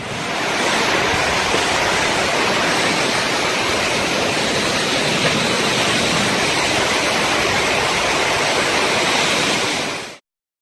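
Heavy rain and strong gusting wind of a summer storm: a loud, steady rushing that stops abruptly about ten seconds in.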